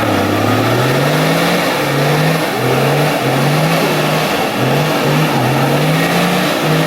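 Off-road 4x4's engine revving hard over and over, the pitch climbing and dropping back about eight times as the driver works the throttle.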